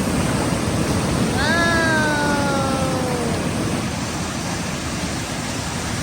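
Creek rapids rushing steadily. About a second and a half in, a single long voice-like tone sounds over the water, falling slowly in pitch for about two seconds.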